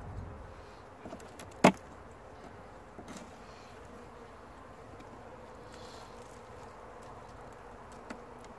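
Honey bees buzzing faintly around an opened hive, a steady low hum. A single sharp click a little under two seconds in and a few lighter ticks come from the frames being worked loose and lifted out.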